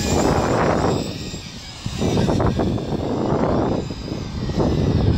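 Wind buffeting the microphone in irregular gusts, easing off briefly about a second in. Under it is a faint steady high whine from the motors of a distant Tarantula X6 hexacopter drone in flight.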